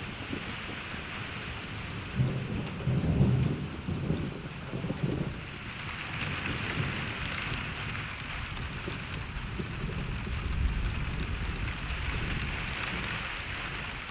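Steady rain falling, with a rolling rumble of thunder starting about two seconds in and lasting a few seconds, then a softer low rumble later.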